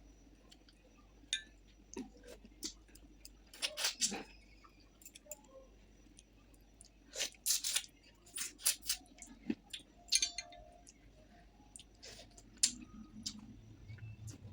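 Close-up eating sounds of someone chewing a mouthful of fish curry and rice: scattered short smacks and clicks, in clusters.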